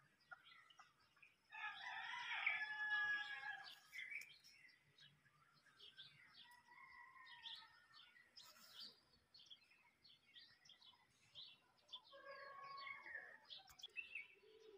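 A rooster crowing, one long crow of about two and a half seconds near the start and another near the end, with small birds chirping in between.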